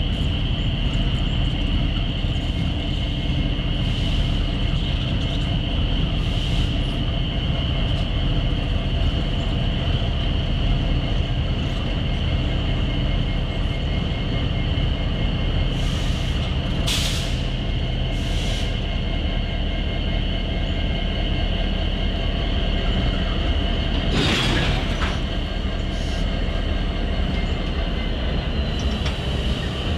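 Canadian National diesel-electric locomotives running light at low speed, a steady engine drone with constant tones. Short hissing bursts come about 17 and 24 seconds in.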